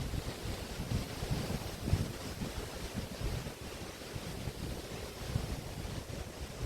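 Waves washing onto the shore of the Río de la Plata, with wind buffeting the microphone in irregular low gusts.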